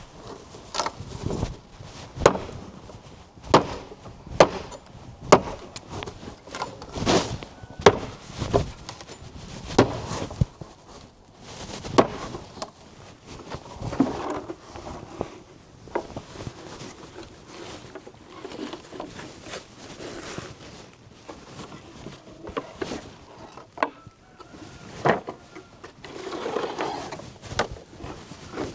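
Repeated sharp knocks, roughly one a second for the first half, then only a few scattered ones among softer rustling.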